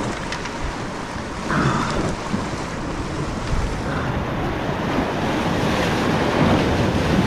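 Sea waves washing against the rocks of a jetty, with wind buffeting the microphone.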